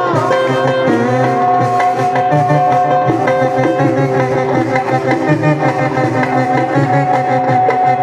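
Live Middle Eastern band music: a melody instrument holds one long note from about a second in, over a hand-drum rhythm.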